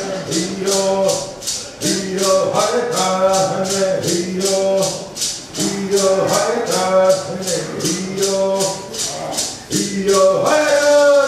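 Cherokee bear dance song: voices singing to a shaken rattle keeping a steady beat of about three to four shakes a second. The rattle stops near the end while the singing goes on.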